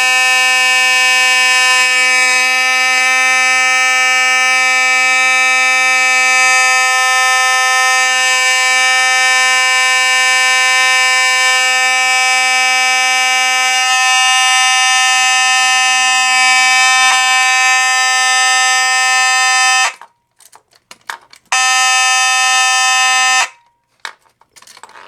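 Simplex 4903-9101 mechanical fire-alarm horn sounding a loud, steady, continuous buzzing tone. It cuts off about 20 seconds in, sounds again for about two seconds, then cuts off. The brief second blast came because the pull station's reset lock was not turned all the way. Faint clicks of the key and lock are heard in the gaps.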